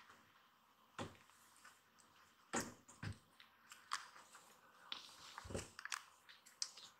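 A quiet room with a few soft thumps and light clicks scattered through it, the loudest about two and a half seconds in.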